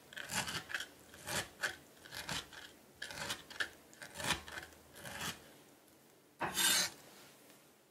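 Chef's knife chopping diced tomatoes on a wooden cutting board, about ten quick chops in the first five seconds, then a single longer scrape near the end as the blade sweeps the chopped tomato across the board.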